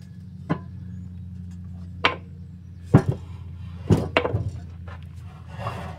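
Hinged steel lid of a pellet trap made from an old compressor air tank being shut and handled: several sharp metal clunks, the loudest a double knock about three seconds in, followed by a cluster of knocks, over a steady low hum.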